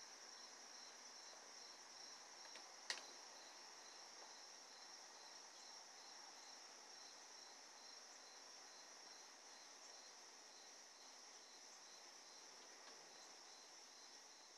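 Faint insect chorus: a steady high trill with a regular pulsing chirp beneath it, about two pulses a second, and a single sharp click about three seconds in.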